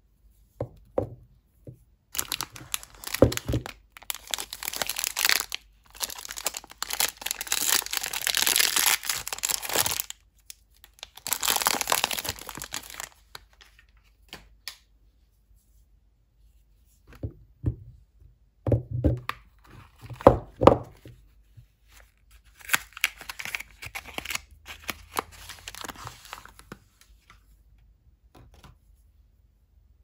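Soap bar wrappers torn open and crinkled by hand in several long rustling bursts, with a few sharp knocks of bars of soap being handled in between.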